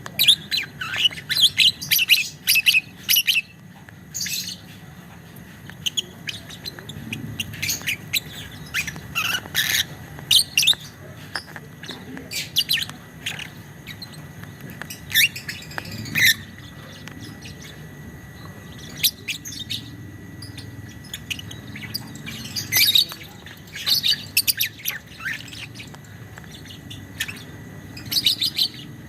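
Violet (biola) lovebird chattering in rapid runs of sharp, high chirps, in groups a second or few long with short pauses between: the long 'ngekek' chatter.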